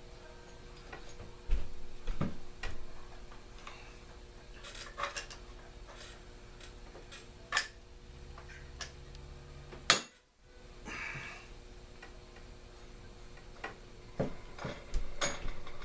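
Irregular clicks and knocks of hand tools working a Homelite chainsaw's clutch loose, with one sharp, louder knock about ten seconds in.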